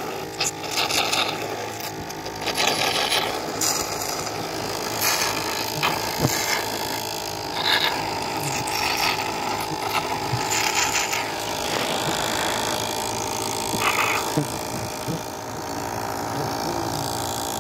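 Small motorized suction pump running steadily with a hum, drawing honey out of opened trigona (stingless bee) honey pots through a thin tube, with irregular hissing slurps as honey and air are sucked in.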